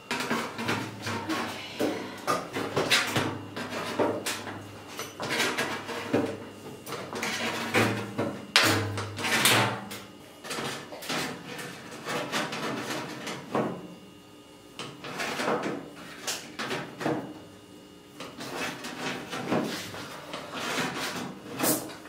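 Crescent Wiss five-blade hand crimper squeezing the end of a galvanized steel stove pipe, again and again in short clusters of clicks and metallic crunches with brief pauses, as it is moved around the pipe. The crimps narrow the pipe end so it will slide inside the next section.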